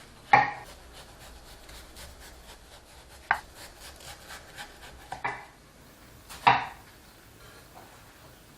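Kitchen work sounds: four sharp knocks and clunks, the first and last the loudest, with faint quick tapping between them in the first half, like a knife on a cutting board.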